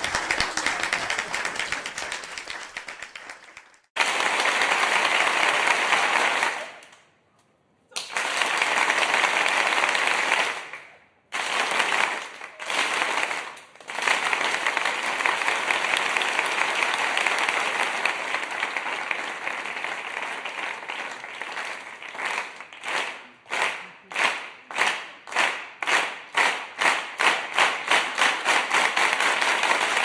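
Crowd applause in several separate recordings one after another, each starting abruptly and dying away within a few seconds. In the last and longest, the applause turns into rhythmic clapping in unison that speeds up from about two to three claps a second.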